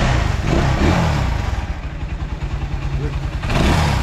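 Honda XR200 single-cylinder four-stroke motorcycle engine idling, blipped on the throttle so its pitch rises and falls briefly about half a second in, around one second and near three seconds.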